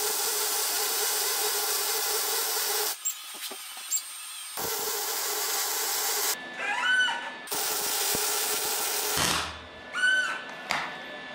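Wire-feed (MIG) welder arc crackling and hissing steadily as beads are laid on steel frame mounts, run near the welder's maximum settings. It comes in three runs, broken by short pauses about three and six seconds in, and stops about nine seconds in, with a few short squeaks and a click in the gaps.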